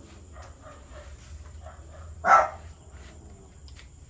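A single short dog bark about two seconds in, over faint background noise.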